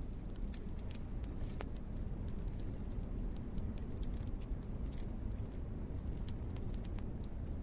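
Wood fire crackling: irregular small pops and snaps over a steady low rumble.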